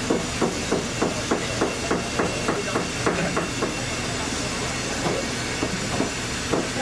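Repeated sharp knocks, about three a second, with a break a little past halfway before they resume more sparsely, over a steady hiss.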